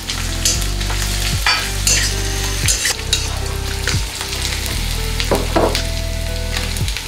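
Garlic and green chillies sizzling in hot oil in a wok as they are stir-fried. A steel spatula scrapes and knocks against the wok at irregular moments, several times through the clip.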